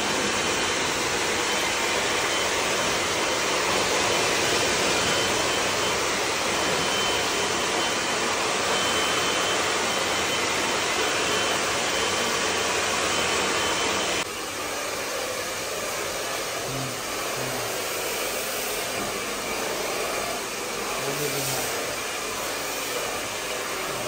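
Handheld hair dryers blowing steadily on wet hair. About 14 seconds in, the air noise drops a step quieter and carries on.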